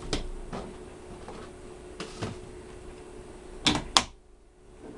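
Hands knocking and clicking plastic parts against the dust shoe of a CNC router while a brush dust skirt is pulled off and a clear PVC skirt is fitted. Irregular clacks, with two sharp snaps close together near the end, over a faint steady hum.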